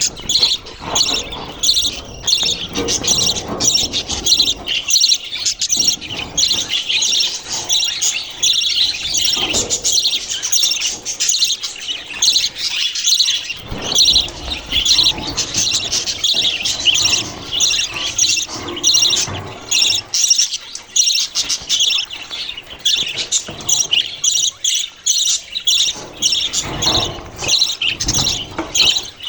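Small pet parrots chirping and chattering without a break, a dense stream of rapid high chirps from several birds at once.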